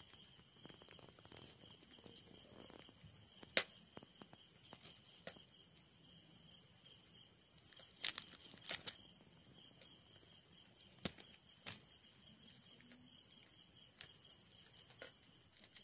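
Crickets chirring steadily in a high, finely pulsing drone, with a few sharp clicks over it, the loudest about four seconds and eight to nine seconds in.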